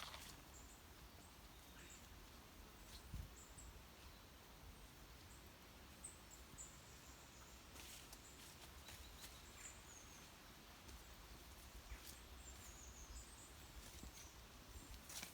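Faint, quiet outdoor ambience with small songbirds giving short, thin, very high calls scattered throughout, and a few soft clicks or crunches.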